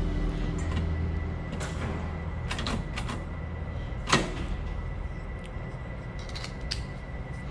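Scattered clicks and knocks of door lock hardware being handled and fitted, with one louder knock about four seconds in and a run of small clicks near the end.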